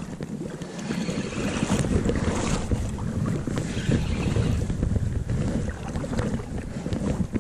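Wind buffeting the microphone in gusts over the rush of river water, getting louder about a second in.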